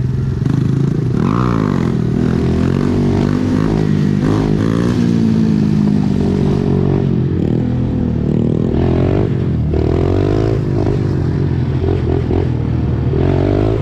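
Dirt bike engines running and revving, the pitch rising and falling again and again.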